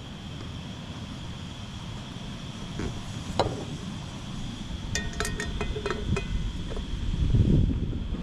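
Gas burner of a Trangia camp stove running with a steady low roar. Metal cookware clinks and rings as pots and pans are handled about halfway through, and a heavier thump near the end as a frying pan is set onto the stove.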